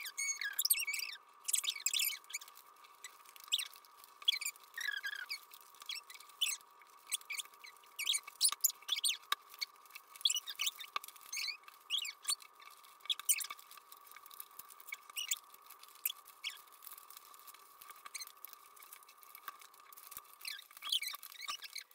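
Sheets of origami paper being folded and creased by hand, with irregular crinkling, rustling and short crisp ticks as the paper is pressed and slid on the tabletop.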